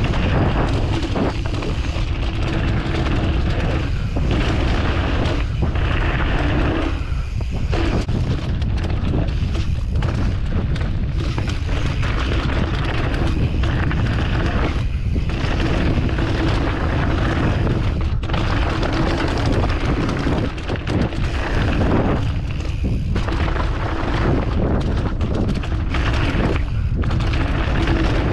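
Heavy wind buffeting on a GoPro's microphone during a mountain bike trail descent, over continuous noise from the tyres and bike that swells and dips unevenly with the terrain.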